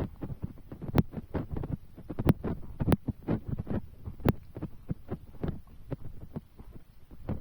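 Large raindrops landing close to the microphone as irregular dull thuds, several a second, with a few sharp clicks among them.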